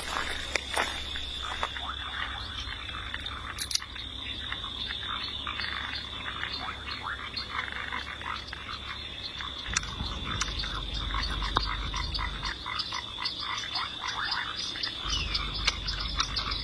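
Dense outdoor chorus of many short, rapid animal calls over a steady high-pitched whine, with a low rumble that swells about ten seconds in and again near the end.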